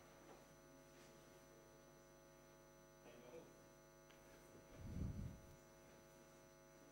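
Near silence with a steady mains hum. A faint voice about three seconds in and a dull low thump about five seconds in.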